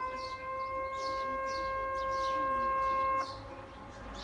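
Outdoor public warning siren for a tsunami warning, holding one steady wail that cuts off suddenly about three seconds in. Small birds chirp over it, a couple of times a second.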